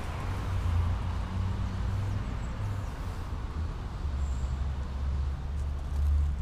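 Low, steady rumble of street traffic, a motor vehicle's engine running, its pitch dropping slightly about four seconds in.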